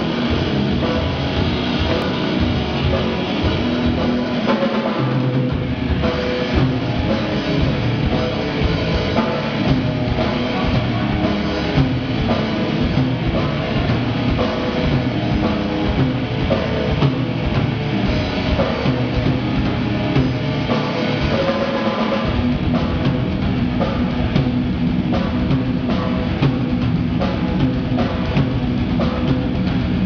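Rock band playing live: a drum kit keeping a steady beat with electric guitar over it, continuous throughout.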